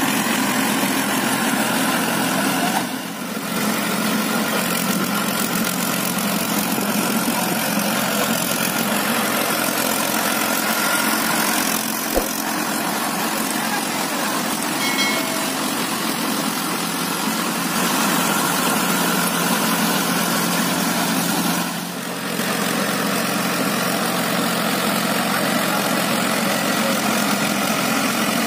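Mahindra Arjun 555 DI tractor's four-cylinder diesel engine running steadily under load while its rear-mounted rotary tiller churns through flooded paddy mud, with two brief dips in level and a single sharp click about midway.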